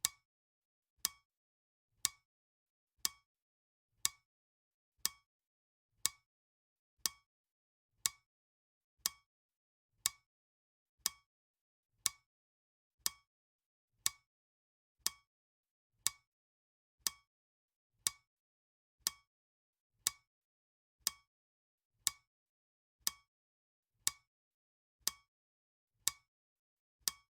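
Clock ticking sound effect: one short, sharp tick every second, perfectly even, with silence between the ticks.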